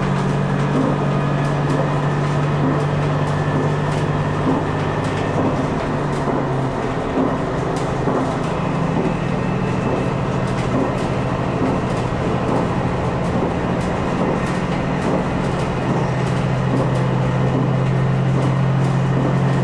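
Diesel limited express train running at speed, heard from the driver's cab: a steady engine drone with light clicks from the wheels and track. The engine note changes about seven seconds in and shifts back near the end.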